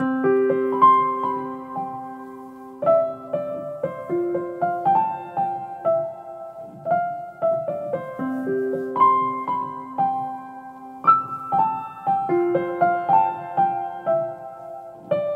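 Background music: a slow, gentle piano melody of struck notes that ring and fade, its opening phrase coming back about eight seconds in.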